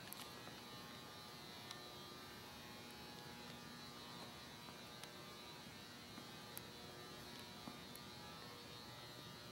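Near silence: room tone with a faint steady hum and a few faint ticks.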